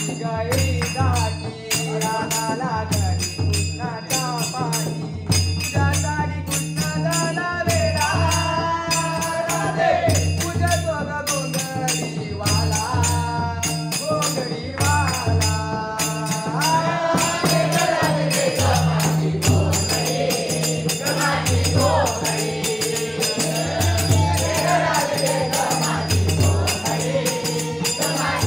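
Group singing a Marathi devotional bhajan, led by one voice, to a pakhawaj (two-headed barrel drum) keeping a steady repeating rhythm. Jingling hand percussion rings along.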